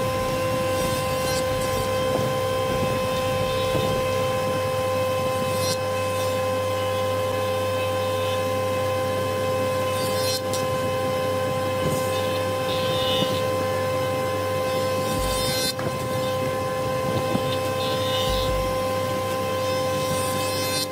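Woodworking jointer running with a steady motor and cutterhead whine while a long board is fed across the cutterhead, with a brief louder flare of cutting noise every few seconds.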